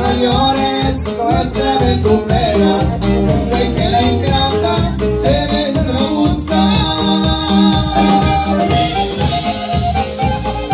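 Live norteño band playing with a steady beat: button accordion over guitar, electric bass and drums, with a saxophone in the line-up.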